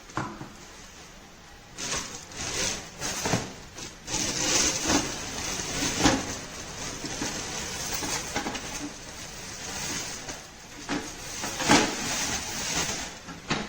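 Plastic food processor jars and their packaging being handled: scattered knocks and clicks over rustling, with the sharpest knock near the end.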